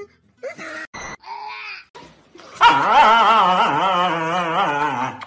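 Husky giving a long, wavering whine-howl that starts about halfway in and runs for about two and a half seconds, its pitch rising and falling throughout; a few short sounds come before it.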